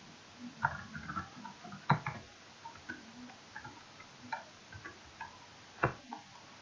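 Computer keyboard keys clicking in an irregular run of typing, with two louder strikes, one about two seconds in and one near the end.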